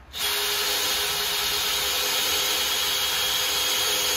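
Handheld power drill boring a 3/8-inch hole through doubled wooden joists to take a carriage bolt. It kicks in abruptly and runs steadily at one speed.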